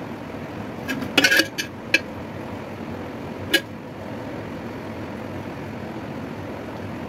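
A quick cluster of sharp clicks and knocks about a second in, and one more a couple of seconds later, over a steady background hiss.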